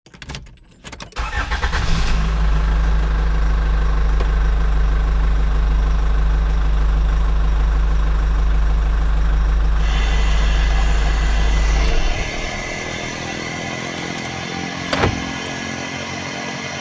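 Walk-behind concrete floor saw's small petrol engine pull-started, catching about a second in and then running steadily at a low pitch. About twelve seconds in the sound drops in level and grows thinner and hissier, with a brief loud burst near the end.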